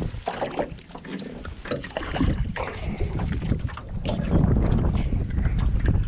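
Wind buffeting the microphone over water and small-boat noises, with scattered knocks and clicks from the hull and gear; the wind rumble grows stronger about four seconds in.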